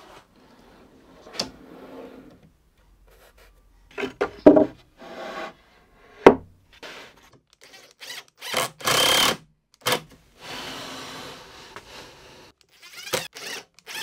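Full-extension metal drawer slides being fitted to a plywood drawer: sliding and rubbing with scattered clicks and wooden knocks, and a cordless drill-driver running screws in short bursts, the loudest about nine seconds in.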